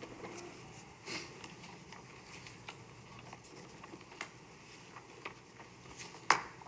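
Quiet room tone in a large meeting chamber, with scattered faint clicks and rustles and one sharper click about six seconds in.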